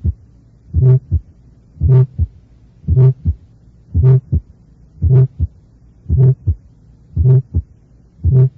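Stethoscope recording of a heartbeat at about one beat a second. Each beat is a first heart sound running into a short systolic murmur with a humming, vibratory tone, then a short, crisp second heart sound. The murmur is an innocent systolic murmur of vibratory timbre.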